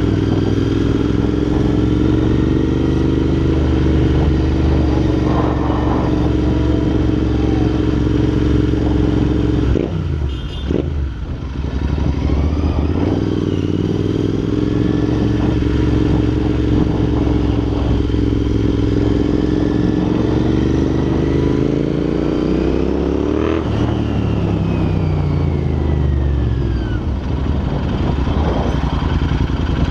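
Royal Enfield INT650's parallel-twin engine through Red Rooster aftermarket exhausts, running under way at a steady cruise. About ten seconds in the engine note dips as the throttle closes briefly, then it pulls again. Near the end it climbs in pitch and drops off sharply.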